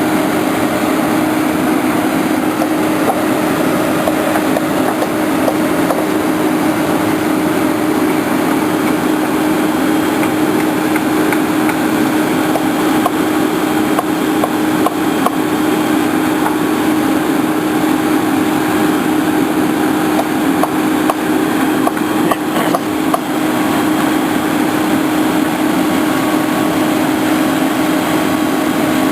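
An engine running steadily with a constant drone, with scattered light knocks, a few of them together about three quarters of the way through.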